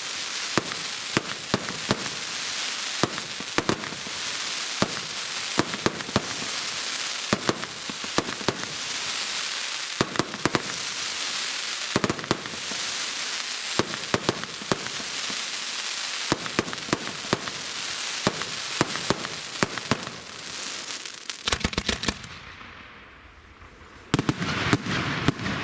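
Fireworks going off: a dense, continuous crackle of many small sharp pops and cracks. About three-quarters of the way through it dies away, then a short cluster of sharp bangs follows near the end.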